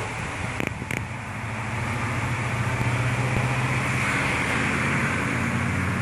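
A motor running with a steady low hum over a broad hiss, growing slightly louder after a couple of seconds, with two short clicks within the first second.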